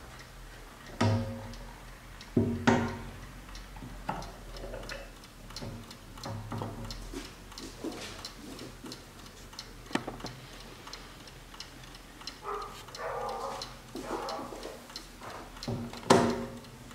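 1960s Hermle mantel clock ticking, with louder knocks and clicks as its wooden case is handled, turned around and its back door opened.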